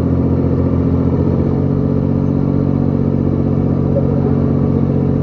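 Swaraj 855 and John Deere 5055E tractors' three-cylinder diesel engines running at full load as the two tractors pull against each other, with a steady, unchanging engine note.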